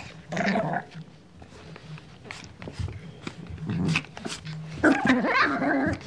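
Small Yorkshire terrier growling in three short bouts, the longest near the end, with scattered clicks between them.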